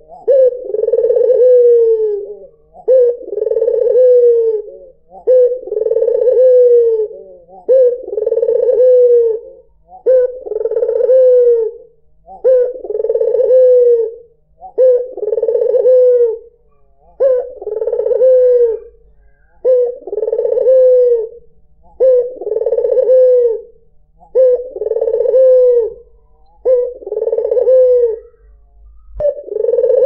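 White (albino) Barbary dove cooing over and over, about one long coo every two seconds, each call sliding down in pitch at its end.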